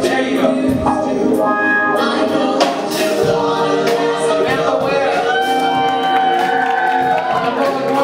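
Live band music with voices singing sustained, wavering notes over the instruments.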